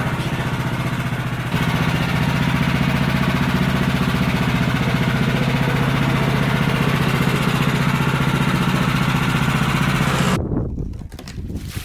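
Woodland Mills HM126 bandsaw mill's small gas engine running steadily, stepping up in level about a second and a half in. The engine sound cuts off abruptly near the end.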